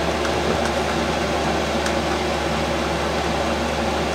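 5 kW Chinese diesel air parking heater running steadily, its blower giving a continuous fan-like rush over a low hum, much like a household fan on medium or high speed.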